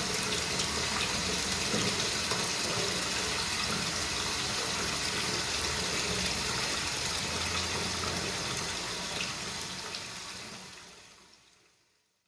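Bathtub being filled from the tap: a steady stream of water pouring into the tub. It fades out over the last two seconds or so.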